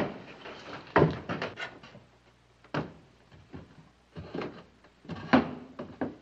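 Footsteps coming down wooden stairs: slow, uneven knocks on the wooden treads, about one every second or so.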